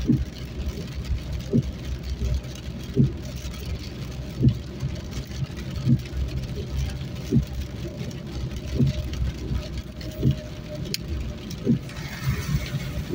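Inside a car driving in heavy rain: a steady engine and road rumble, with the windscreen wipers thudding at regular intervals, about once every second and a half.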